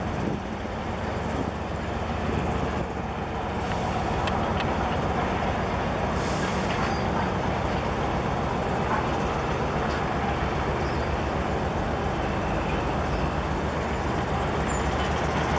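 Steady low rumble and hum of a container ship's engines as its stern passes close by.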